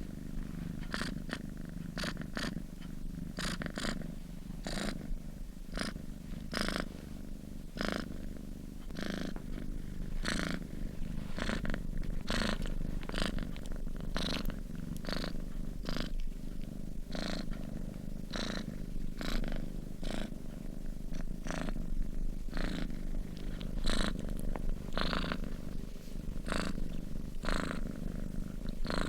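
Sleeping cat purring: a steady low rumble, with frequent short clicks scattered through it.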